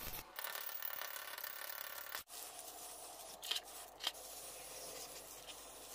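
A scratchy hiss that cuts off sharply about two seconds in, followed by an aerosol spray-paint can hissing steadily, with two short, sharper sounds in the middle.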